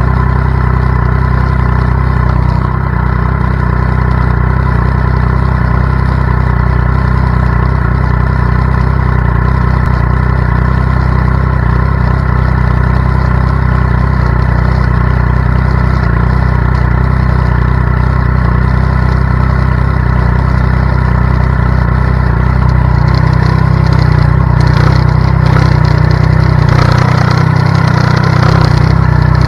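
Triumph Daytona 675's inline three-cylinder engine idling steadily, then picking up slightly and getting a little louder about 23 seconds in.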